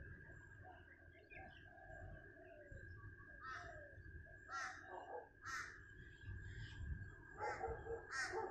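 Crows cawing outdoors: a series of about six short, harsh caws in the second half, over a faint low rumble and a steady high whine.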